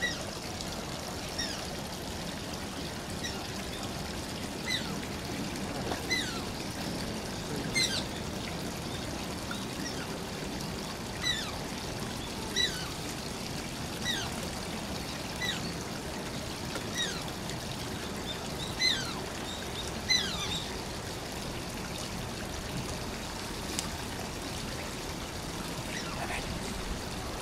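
Asian small-clawed otter squeaking: short, high-pitched calls that slide down in pitch, repeated about every one and a half seconds.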